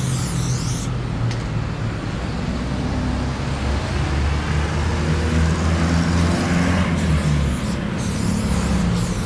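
A motor vehicle engine running close by, its low hum swelling through the middle. An aerosol spray paint can hisses in short bursts at the start and again in the last few seconds.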